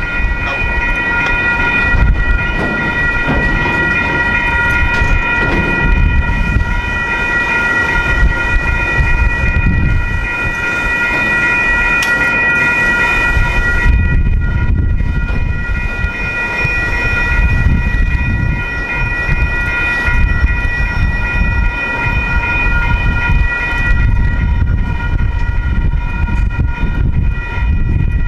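A railroad crossing warning bell ringing continuously over the low rumble and rattle of freight cars rolling through the crossing.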